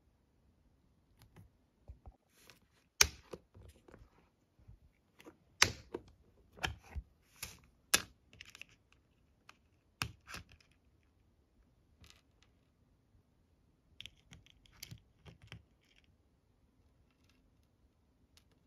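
Flat polymer clay disc beads clicking and rattling against each other and the plastic compartments of a bead organizer box as fingers pick them out and set them down: irregular small clicks with a few louder sharp ones.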